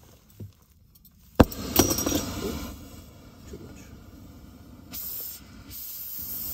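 A spark lighter clicks about a second and a half in, and a brazing torch lights and burns with a steady hiss that grows louder near the end, heating a copper refrigerant line joint.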